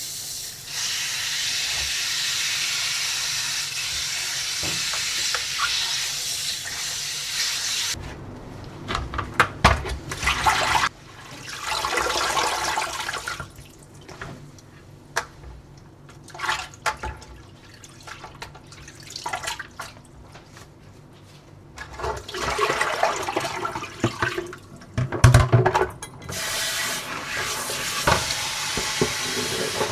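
Kitchen tap running into a sink, with water splashing and a few knocks as things are rinsed under it. It runs steadily at first, breaks into irregular splashes about eight seconds in, and runs steadily again near the end.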